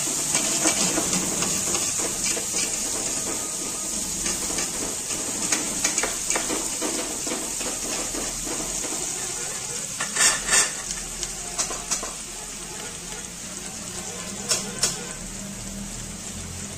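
Sliced onions, green chillies and whole spices sizzling in oil in an aluminium pot as they are sautéed soft, with a metal spatula stirring and scraping against the pot. The sizzle slowly dies down, and sharper scrapes of the spatula come about ten seconds in and again near fifteen seconds.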